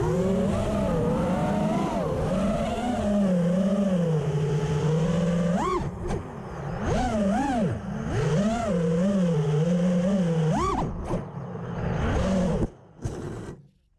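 FPV racing quadcopter's electric motors and propellers whining loudly, the pitch swooping up and down quickly with the throttle through its flips and dives. The whine cuts off near the end.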